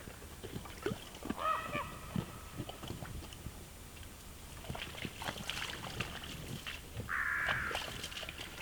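A short, steady buzzing whir from the Canon camera about 7 seconds in, the camera's own noise intruding on the recording. Scattered small cracks and rustles run throughout, and a brief pitched call sounds about a second and a half in.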